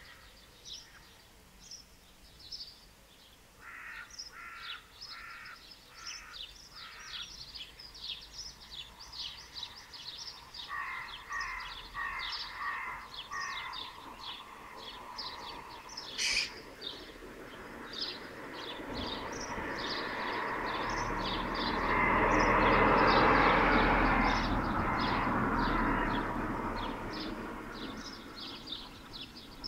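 Birds chirping with quick, high notes all through, with two runs of harsher, repeated calls a few seconds in and again around the middle. Later a passing vehicle swells up and fades away, the loudest sound.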